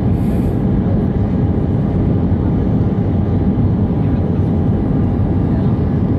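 Airbus A319 cabin noise in flight: a steady low drone of engines and airflow, with no change in level.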